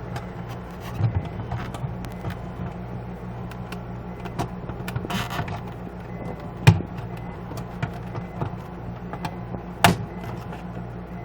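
Plastic clicks, knocks and scraping as a refrigerator lamp socket is forced into a mounting hole slightly too small for it, over a steady low hum. The sharpest knocks come about a third of the way through and again near the end.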